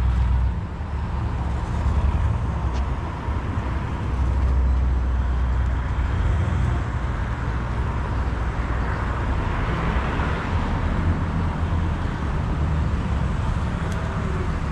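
A lowrider car's engine rumbling steadily as it drives across the lot, its noise swelling as it comes closest about ten seconds in.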